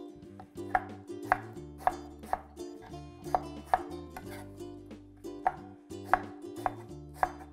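Kitchen knife chopping on a cutting board: sharp, uneven knocks about one to two a second, with background music underneath.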